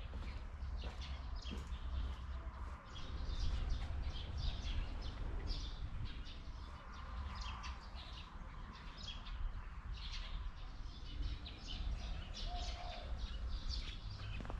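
Many small birds chirping and twittering, short high calls overlapping thickly, over a steady low rumble.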